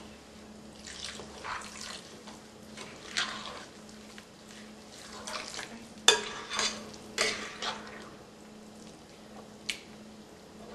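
Spoon stirring sooji (semolina) batter in a glass mixing bowl as water is worked in: uneven wet scraping strokes, with a few sharp knocks of the spoon against the glass, the loudest about six seconds in.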